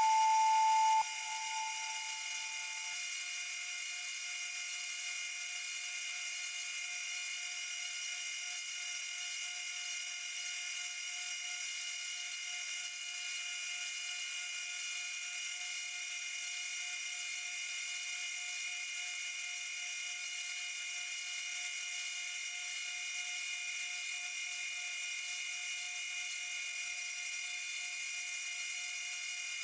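Bridgeport Torq-Cut 22 CNC mill's spindle running as it spins aluminium stock against a fixed lathe tool: a steady, high-pitched machine whine with several tones.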